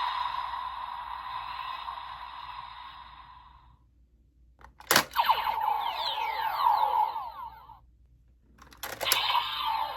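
Electronic sound effects from a DX Kamen Rider Gavv transformation toy's speaker. A sustained tone fades out; then a click about five seconds in is followed by quick sweeping glides, and another click near the end brings more glides.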